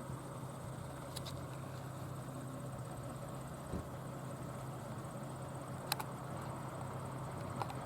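Outdoor background: a steady low hum with a faint, even high-pitched tone above it and a few light clicks. No siren is sounding.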